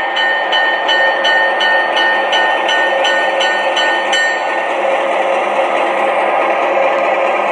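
O-scale model train running on the layout, its Atlas 44-tonner's ProtoSound 3 sound system ringing the locomotive bell at about three dings a second until about four seconds in, over the steady rolling noise of the train on the track.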